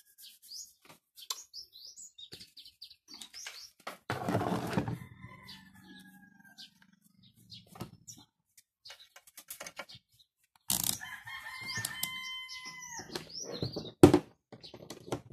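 A rooster crowing twice, with small birds chirping in between, and one sharp click near the end.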